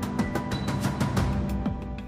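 Background music with held tones, short downward-sliding bass notes and a quick percussive beat.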